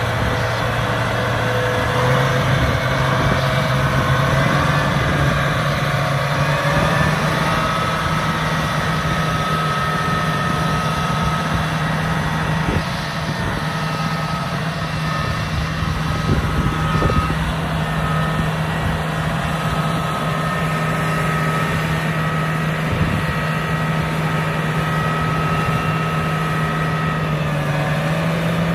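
2017 John Deere 8345RT track tractor's diesel engine running as the tractor creeps along, its pitch stepping up a little about two seconds in. A high whine comes and goes over the engine.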